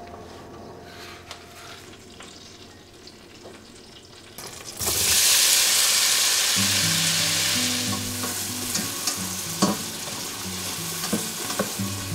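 Chopped onion hitting hot melted butter in a stainless steel pot about five seconds in and frying with a loud, steady sizzle, stirred with a spatula; before that, only faint clicks from the melting butter.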